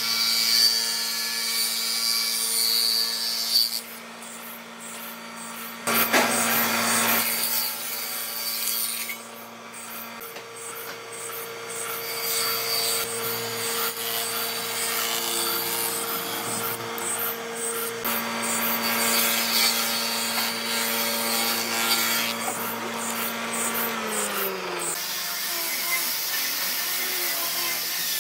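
Electric power tool working wood: a steady motor hum under a rough rasping of the tool against the wood. Near the end the motor's pitch drops as it winds down.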